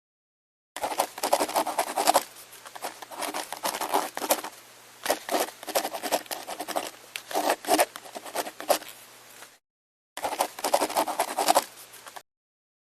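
A drawing tool scratching on paper in repeated quick strokes, like colouring in, with a short break about ten seconds in.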